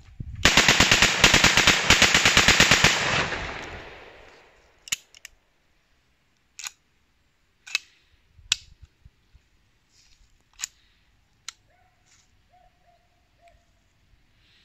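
Zoraki 914 blank pistol fired on full automatic from its extended 25-round magazine: one rapid burst of about three seconds that fades out in echo. A handful of sharp single clicks follow.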